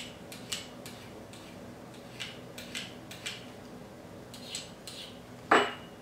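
Short scraping strokes of a ceramic sharpening rod's edge across the curved blade of a Swiss Army knife's can opener, about a dozen passes in three quick bursts, honing the dull edge back. Near the end comes one louder ringing clink as the ceramic rod is set down on the table.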